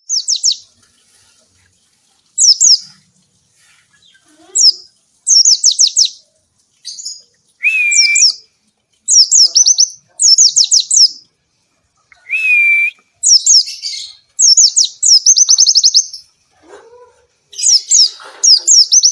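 White-eye (pleci) singing a loud, lively song: short bursts of rapid, high descending chirps, phrase after phrase with brief pauses between them. Twice a lower, held whistle note comes in.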